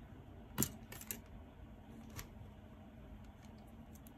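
A few light clicks and taps from hands handling a crochet hook and yarn, with one sharper click about half a second in, over quiet room tone.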